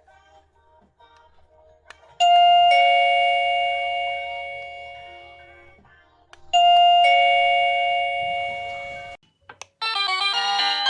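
VOXON wireless doorbell receiver playing a two-note ding-dong chime twice, each note ringing out slowly; the second chime is cut off abruptly. Music then starts loudly near the end.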